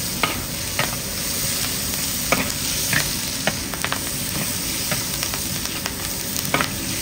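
Chicken pieces sizzling in hot oil in a large wok, stir-fried with a metal ladle that clinks and scrapes against the pan every second or so over the steady hiss.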